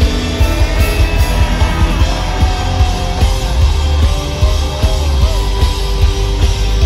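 Rock band playing live in a stadium, heard from the crowd: electric guitar, drums and heavy booming bass, with a held melody line that slides in pitch twice midway.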